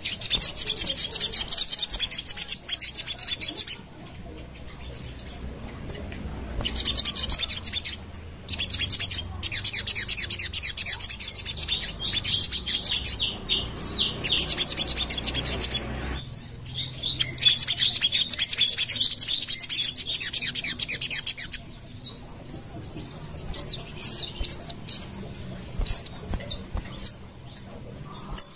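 Sogon, a long-billed nectar-feeding songbird, singing long bursts of rapid, high-pitched chirping trills, broken by short pauses and thinning to scattered single chirps near the end.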